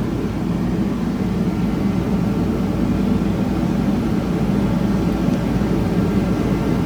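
A steady, unbroken low mechanical drone, like a fan or air-conditioning unit running, with no knocks or clicks over it.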